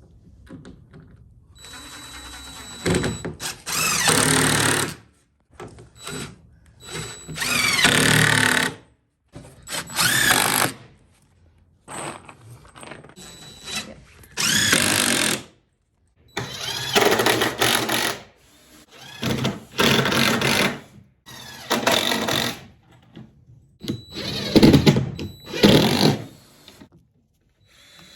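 Power drill running in about a dozen short bursts of one to two seconds each, spinning up and down with brief pauses between, as in driving fasteners into lumber.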